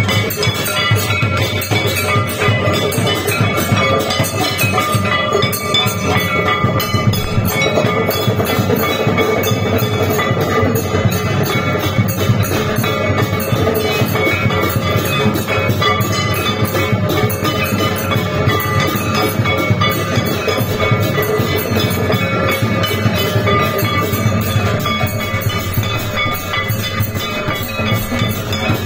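Hindu temple aarti percussion: hand-held metal gongs struck rapidly and continuously with sticks, mixed with ringing bells and drumming, forming a steady, loud clangour of sustained metallic ringing.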